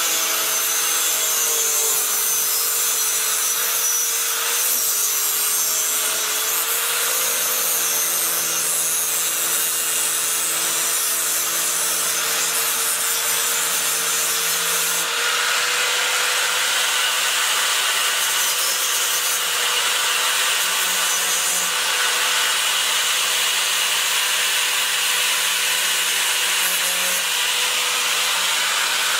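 Electric angle grinder with a thin cutting disc running continuously as it cuts the end of a 15 mm copper pipe at an angle, with a steady motor whine under a harsh cutting hiss. The whine sags slightly in the first few seconds as the disc bites into the copper.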